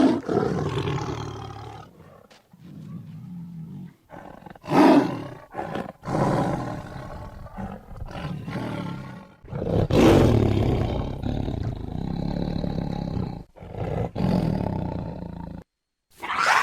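Big-cat roar and snarl sound effects played one after another, several separate roars with short gaps between them. The loudest come near the start, about five seconds in and about ten seconds in, with a sudden cut near the end before another roar begins.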